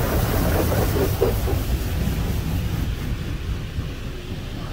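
Hydrospray Rainmaker car wash water spray hitting the car's side window and body, heard from inside the cabin, over a steady low rumble; the hiss of the spray fades about halfway through.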